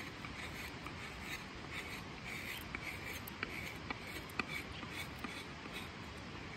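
Crooked knife shaving a redwood board in repeated short scraping strokes, roughly two a second, as finishing cuts that smooth the surface. Under it runs the steady rush of a snow-melt creek in spate.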